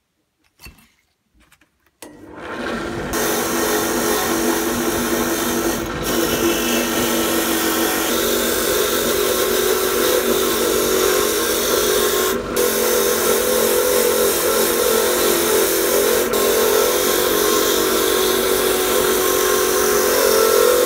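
A few faint knocks, then about two seconds in a wire wheel on a bench drill press starts scrubbing rust off a pitted steel bolt-cutter jaw plate pressed against it: a loud, steady whirring rasp that dips briefly twice as the part is shifted on the wheel.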